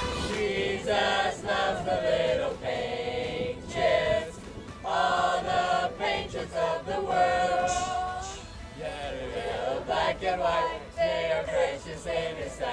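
A group of young men and women singing together without accompaniment, phrase by phrase, with short breaks between lines.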